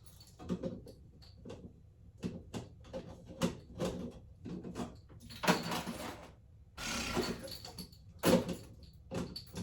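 Hard plastic parts of a water filter clicking and knocking as it is pushed and twisted into place, with two denser, noisier stretches of about a second each in the middle.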